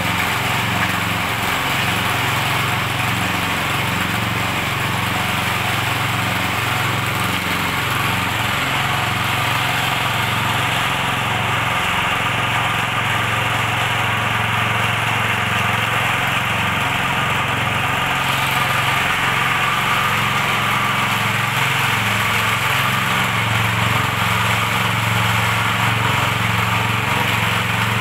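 Walk-behind power trowel's small petrol engine running steadily while its spinning blades smooth wet concrete.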